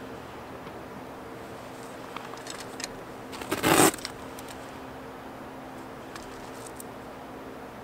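A caulking gun handled and set down on loose gravel: a few light clicks, then one brief loud crunch of stones about three and a half seconds in. A faint steady hum runs underneath.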